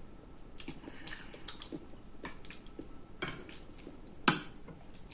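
Eating sounds: chewing with scattered light clicks and taps of food against dishes, and one sharper tap about four seconds in.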